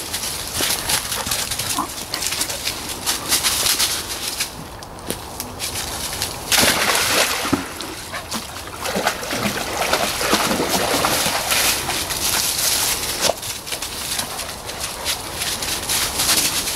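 Dogs splashing about in a shallow stream, water sloshing, with a few short whines from a dog around the middle.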